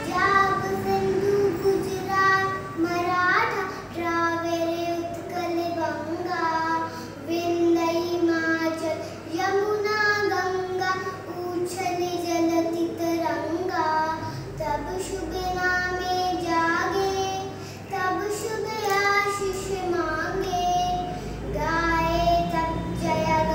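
A young girl singing solo, a melody of long held notes sung in phrases with short breaths between them.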